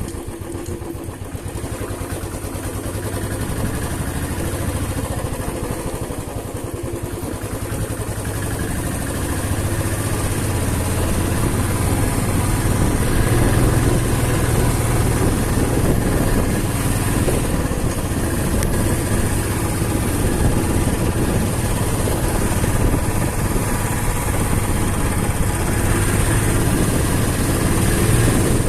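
Motorcycle engine running under way, getting louder over the first ten seconds or so and then holding steady.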